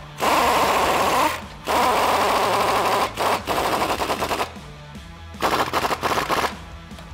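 Pneumatic impact wrench hammering in a series of bursts of about a second each with short pauses, tightening a new nylon lock nut onto the top of a strut.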